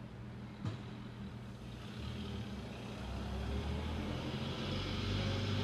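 Car engine running, with a brief click about half a second in, then growing louder and fuller from about two seconds in as it accelerates: the 1962 Oldsmobile Jetfire's turbocharged aluminium V8.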